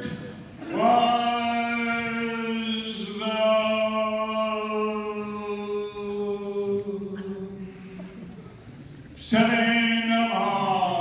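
A man singing long held notes unaccompanied into a microphone: a high note held for about two seconds, then a lower note held for about five seconds, and after a short pause a new note that slides downward near the end.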